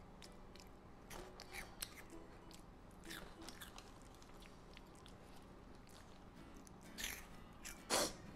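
Close-miked crunching and chewing of a crispy cheese-puff snack, in scattered crackles. Near the end come two louder scraping noises.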